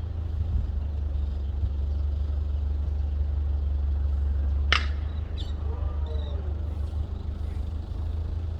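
A steady low rumble, then a single sharp crack of a baseball impact about halfway through, followed by faint calls from voices on the field.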